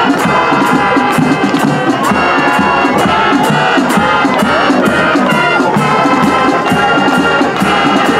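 High school marching band playing its fight song: brass over drums with a steady beat.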